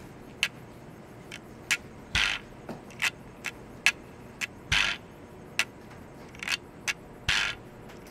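Keys and lock of a barred metal gate being worked: light metallic clicks, with a louder scraping clank about every two and a half seconds.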